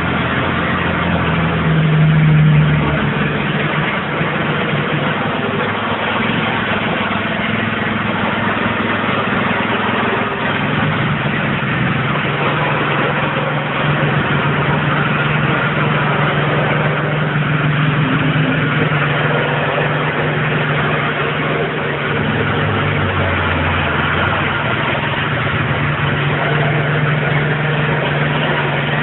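Petrol-engined vibrating plate compactor running steadily while it compacts a sharp-sand base, its engine note shifting a few times.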